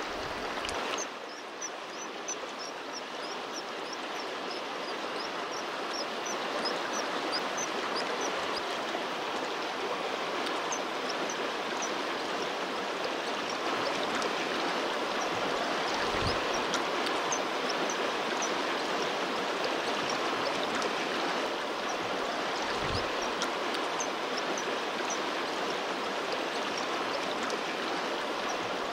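Mountain river rushing over stones in a steady, even rush. Faint, short, high peeps are scattered through it, and there are two soft low bumps around the middle.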